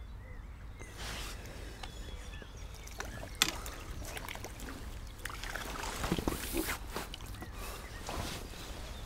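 A small skimmer bream splashing at the water's surface as it is drawn in on a pole and scooped into a landing net, with rattles and clicks of the tackle and net. There is one sharp knock about three and a half seconds in.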